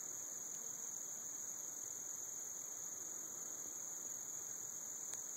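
Steady, high-pitched drone of a late-summer insect chorus of crickets, unbroken throughout.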